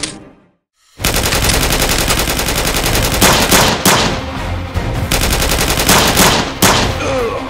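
A sharp click, then a moment of silence, then sustained rapid automatic-gunfire sound effects with several louder shots standing out, over a background music bed.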